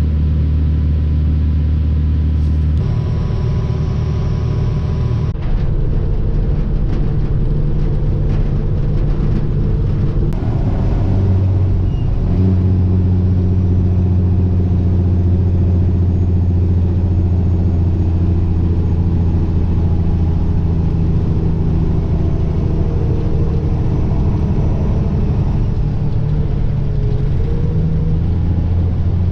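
Tractor engine running steadily, its pitch shifting about three seconds in and again about twelve seconds in, with some rattling a few seconds after the first shift.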